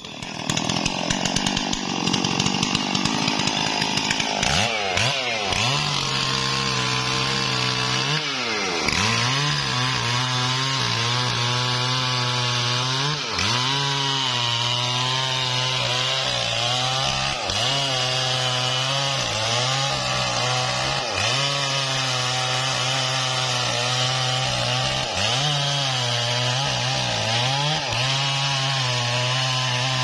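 Stihl MS 440 two-stroke chainsaw at full throttle cutting into a mahogany trunk. Its engine pitch repeatedly sags under the load of the cut and climbs back, every few seconds.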